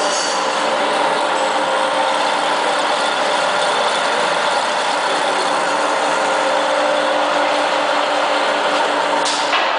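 All-geared lathe running, its headstock gear train giving a steady, even gear noise with several constant tones. There is a short click near the end.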